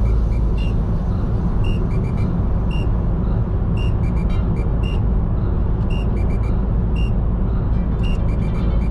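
Road vehicle driving: a steady low rumble of engine and road noise, with faint high tones and ticks repeating about once a second.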